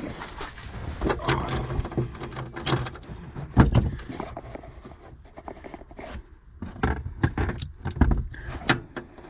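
Hand tools and small metal parts being handled: irregular clinks, rattles, knocks and scrapes, the loudest knock about three and a half seconds in.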